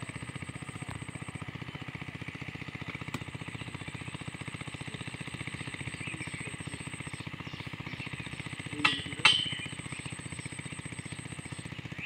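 A small engine running steadily at an even speed, with two sharp knocks about nine seconds in.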